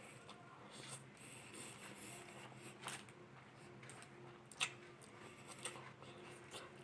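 Faint eating sounds at a meal of rice and chicken: soft rustles and small clicks of utensils and food, with a sharper click about four and a half seconds in, over a steady low hum.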